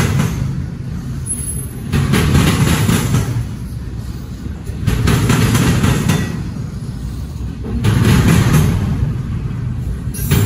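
Double-stack intermodal freight train rolling past close by: steady low rumble of the well cars with a clattering wheel noise that swells loud about every three seconds.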